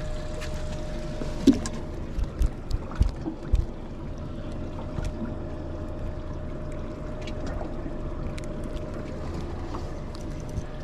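Steady low hum with a faint steady whine from a Minn Kota electric trolling motor holding the skiff in place on spot-lock. A few sharp clicks and knocks of tackle being handled come in the first few seconds.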